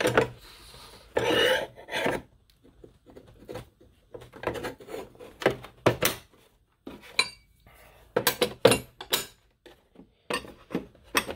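Flat steel fan clutch wrenches handled in their moulded plastic case, clinking and knocking against each other and the case at irregular moments, with a short stretch of scraping as they slide about a second in.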